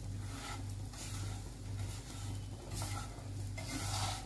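Silicone spatula stirring and scraping thin crushed vermicelli as it toasts in ghee in a nonstick pan over a low flame. The rustling strokes come in swells about once a second, with the ghee sizzling lightly underneath.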